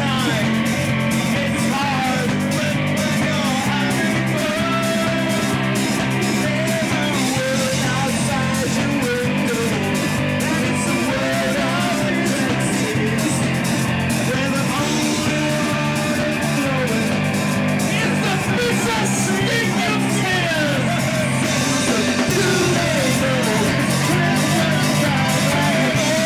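Rock band music led by guitar, with a steady drum beat and no sung words.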